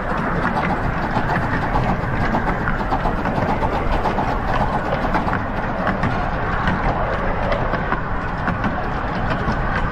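15-inch-gauge miniature steam train running along the track, heard from on board just behind the locomotive: a steady rumble of wheels on rail with a fast, irregular clatter of clicks.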